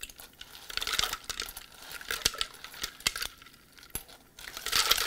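Crushed ice being scooped with a metal spoon from a glass bowl and dropped into a glass pitcher of lemonade: rattling, clinking ice against glass and spoon. It comes in two spells, with a short lull about three and a half seconds in.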